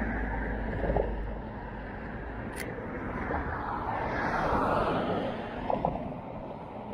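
Road traffic on a wide street, a car passing by that swells and fades around the middle, with a single sharp click about two and a half seconds in.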